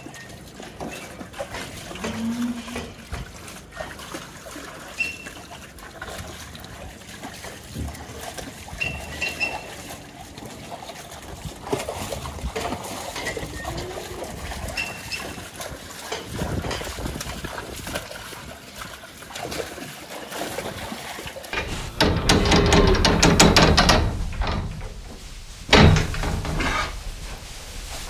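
Dairy cows at a trough in a wet yard: trickling and splashing water and the animals shifting about. A loud crackling rush comes in about three quarters of the way through and lasts about two seconds, and a sharp thump follows near the end.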